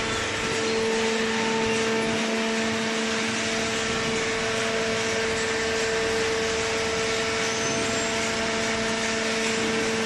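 Hydraulic cardboard baler's power unit (electric motor and hydraulic pump) running: a steady hum with a constant low tone over a broad hiss.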